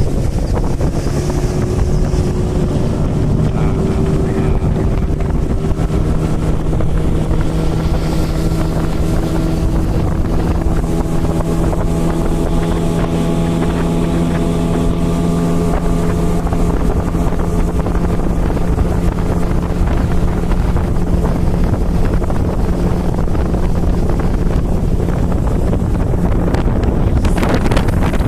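Small boat's engine running steadily at an even pitch, with wind buffeting the microphone; a short rush of noise near the end.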